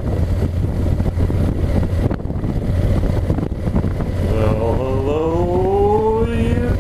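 Motorcycle riding at low speed, its sound dominated by a loud rumble of wind on a helmet-mounted microphone that has lost its foam cover. About four seconds in, the engine note rises steadily as the bike accelerates.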